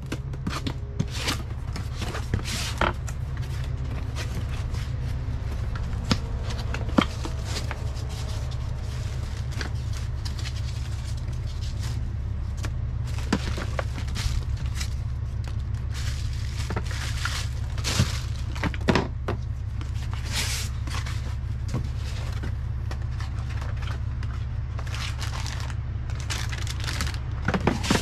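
Cardboard box being opened and unpacked: flaps, plastic-bagged parts and foam inserts rustling and scraping, with scattered sharp knocks and clicks, over a steady low rumble.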